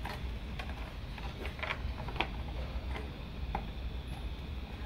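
Irregular small clicks and taps from a plastic RC buggy body shell being handled and pressed onto the chassis, the loudest about two seconds in, over a steady low hum.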